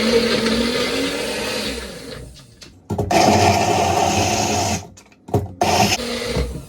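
Blender running in several bursts on a thick frozen-banana smoothie: a long run that winds down, a short pause, a second run, then two quick pulses near the end.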